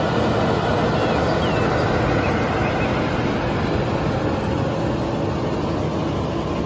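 Fire engine running its pump hard while its deck gun throws a high-pressure water stream: a steady mix of engine and rushing water.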